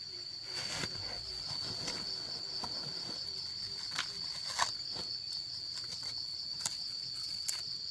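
Steady high-pitched, finely pulsing insect chorus of crickets or cicadas, with a few sharp clicks scattered through, the loudest about halfway.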